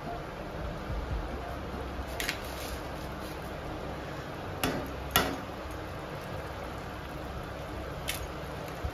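Raw eggs tapped and cracked against the rim of a pan of simmering masala: four sharp taps, two of them close together near the middle, over a steady low hum.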